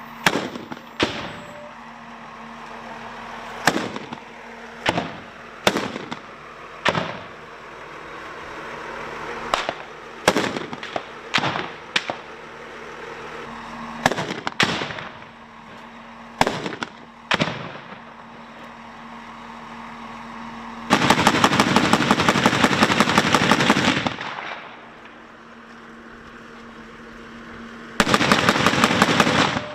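Gunfire: scattered single shots, then two long bursts of rapid automatic fire, the first about three seconds long and the second near the end. A steady armoured-vehicle engine hum runs underneath.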